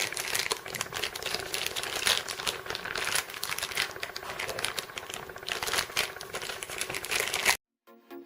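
Small plastic mystery-toy packets crinkling and crackling as they are handled and torn open by hand, with many quick sharp crackles; the sound cuts off suddenly near the end.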